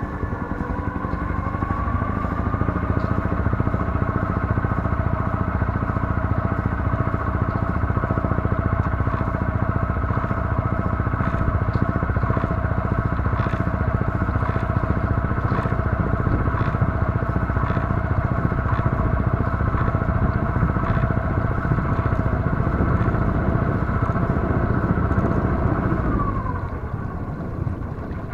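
Sailboat's engine motoring slowly under way. Its pitch rises over the first couple of seconds, holds steady, then falls and quietens about two seconds before the end, with light clicks here and there.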